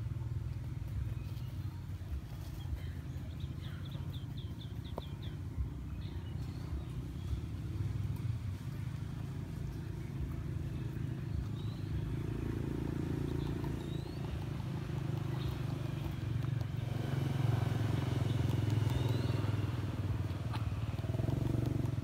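Porcupine chewing a piece of papaya, over a steady low rumble, with a few short high chirps.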